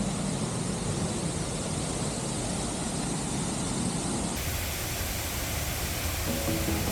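Waterfall pouring into its pool: a steady, even rush of falling water. The rush changes abruptly about four seconds in, and faint music comes in near the end.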